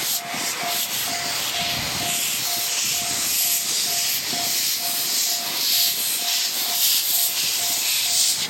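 Japanese level-crossing warning bell dinging about twice a second while a freight train rolls past, its wheels making a steady rushing noise on the rails.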